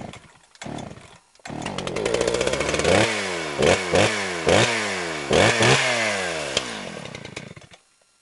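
Two-stroke chainsaw engine sputtering a few times, then catching about a second and a half in and being revved over and over, its pitch falling away after each throttle blip before it cuts off near the end.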